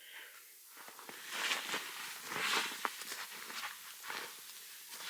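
Irregular footsteps and scuffs, about one or two a second.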